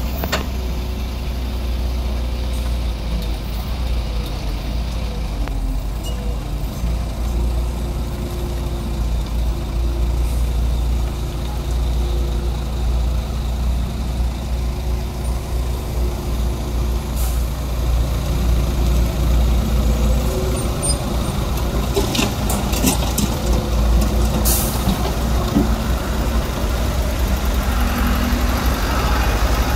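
Diesel engines of a tracked excavator and a dump truck running steadily with a deep rumble. A few sharp knocks and scrapes come about three-quarters of the way through as the excavator bucket works the rubble and broken asphalt.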